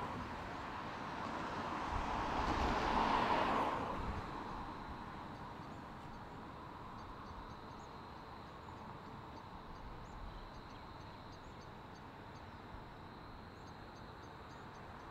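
A road vehicle passes in the first few seconds, its noise swelling and then fading. After that comes the faint, steady rumble of a distant stone train's wagons rolling along the line.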